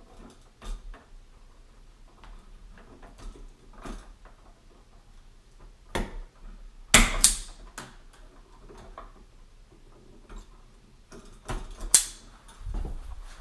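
Wire stripper that grips the wire and pulls the insulation off, clicking and snapping as it strips electrical wire: scattered small clicks with two sharp snaps, about halfway through and again near the end.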